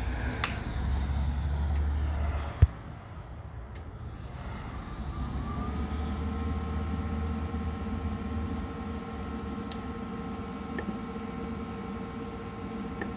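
Lincoln Power MIG 210 MP welder switched on: a low rumble of handling, one sharp click of the power switch a couple of seconds in, then the machine's cooling fan spinning up, rising in pitch and settling into a steady hum.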